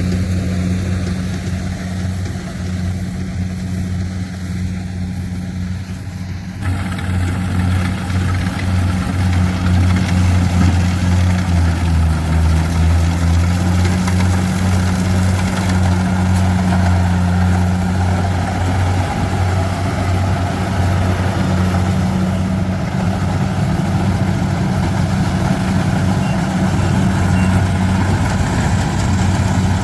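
Kubota combine harvester's diesel engine running steadily while harvesting rice, a low, even hum that grows louder and fuller about six seconds in.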